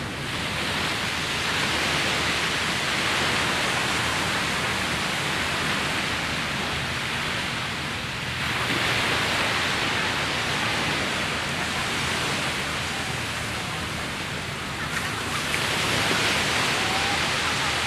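Surf breaking on a sandy beach: a steady hiss of waves that swells and eases three times, roughly every seven or eight seconds.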